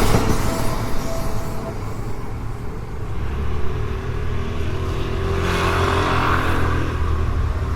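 A vehicle passing: a low rumble that builds from about three seconds in and eases off near the end, with a brief hiss in the middle of it.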